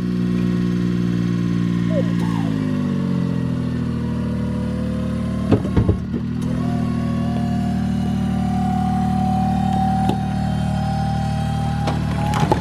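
Mini truck engine running steadily, its pitch dropping about two seconds in. A few clunks follow, then a whine that rises slowly in pitch as the hydraulic dump box tips up under a load of firewood logs.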